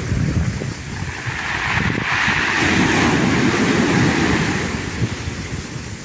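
Small sea waves breaking and washing up a pebble beach, the hiss of the surf swelling about two seconds in and easing off near the end. Wind buffets the microphone throughout with a low rumble.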